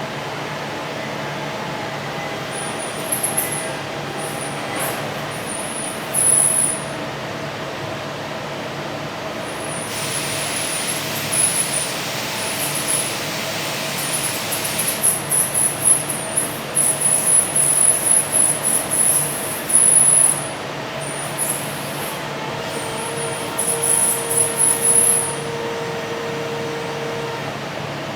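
Automated machining cell running: a steady machine hum with short, very high-pitched squeals that come and go, and a steady hiss for about five seconds starting some ten seconds in.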